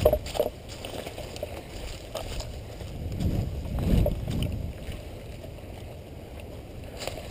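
Dry leaf litter rustling and crunching underfoot as the wearer of a head-mounted camera moves through the woods, with a few sharp snaps at the start. Wind rumbles on the microphone, swelling about three to four seconds in.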